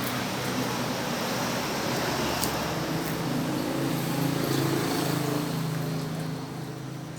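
A motor vehicle's engine running, growing louder through the middle and fading near the end, over a steady background hiss.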